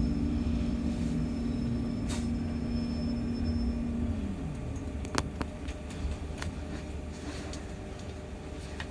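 Inside a Wrightbus New Routemaster hybrid bus: low rumble with a steady hum that slides down in pitch as the bus slows to a stop about four seconds in. Then a lower rumble while it stands, with a sharp click about a second later.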